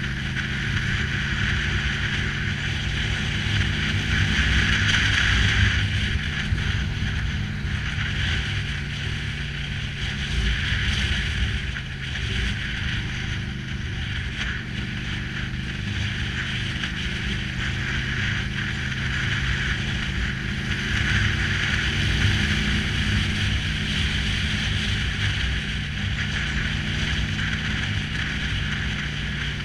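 Cruiser-style motorcycle engine running steadily while riding, under heavy wind rush on the camera microphone.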